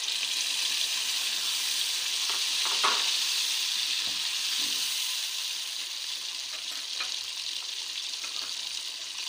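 Tomato and onion paste sizzling as it hits hot oil in a karahi, with the chicken frying in it. A spatula stirs it in, knocking against the pan a few times.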